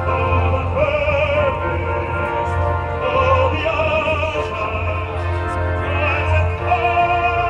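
Music with a singer in operatic style holding long notes with a wide vibrato over instrumental accompaniment, and a steady low hum underneath.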